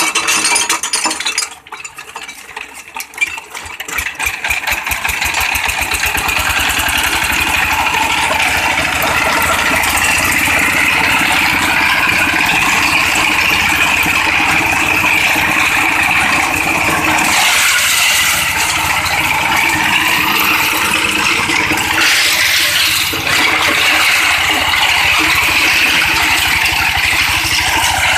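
Single-cylinder 16 hp dompeng diesel engine hand-cranked into life: it catches in the first few seconds, picks up speed, and then runs steadily with a fast even firing beat and a loud rattle.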